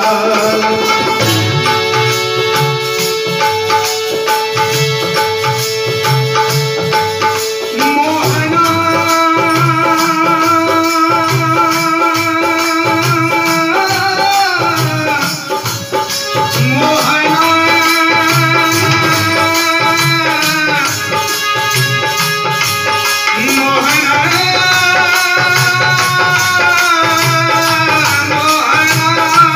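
Devotional bhajan music without words: a naal drum plays a steady rhythm, with a jingling percussion layer, under long held melody notes that move in phrases.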